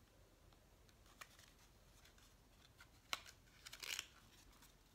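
Near silence with faint handling noise: a few soft clicks, then a brief rustle of packaging about four seconds in, as small items and packaging are handled.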